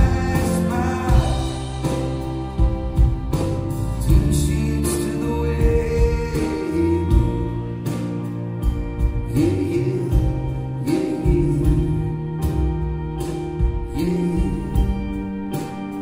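Background music: a song with a singing voice over instruments and a steady beat.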